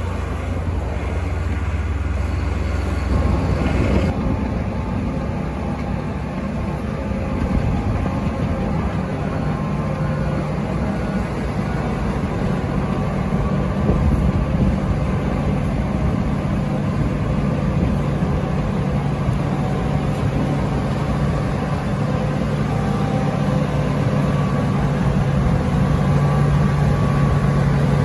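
Heavy diesel machinery running steadily under load: a NICHIJO HTR265 rotary snowplow blowing snow through its chute into a dump truck. It is a continuous engine hum mixed with the rush of the blower. The sound changes about four seconds in and grows a little louder near the end.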